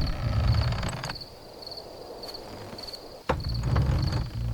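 Crickets chirping in an even, repeating pattern over a low suspense drone. The drone comes in with a sharp hit, fades after about a second, and returns with another hit about three seconds in.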